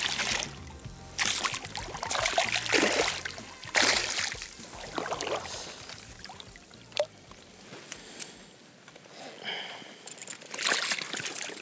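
Water splashing and sloshing in repeated short bursts as a hooked nanyō chinu (Pacific black sea bream) thrashes at the surface of shallow water while it is landed by hand, quieter in the middle with a sharp click near 7 seconds and another splash near the end.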